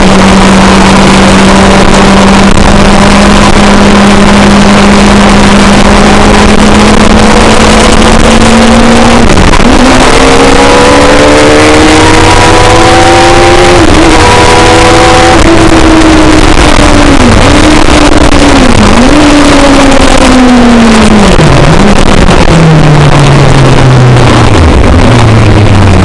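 Kawasaki ZX-10R motorcycle inline-four engine in a kit car, running at a steady cruise, then its note falls through several gear changes as the car slows. A loud steady haze of wind and road noise lies under it throughout.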